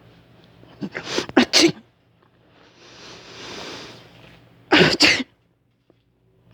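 A person sneezing loudly twice, about a second in and again about five seconds in, with a softer swell of noise between the two sneezes.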